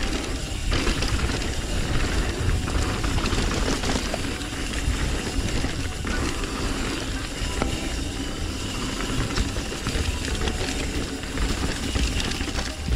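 Mountain bike riding a dirt trail, heard from a GoPro: constant wind buffeting on the microphone with tyre noise and the rattle and clatter of the bike over rough ground, and scattered sharp knocks.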